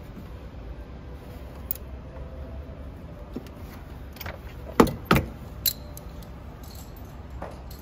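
Socket ratchet and extension working a spark plug in an engine's plug well, with scattered metal clicks and clinks, then two sharp metallic clanks about five seconds in as the tool is pulled out against the engine parts.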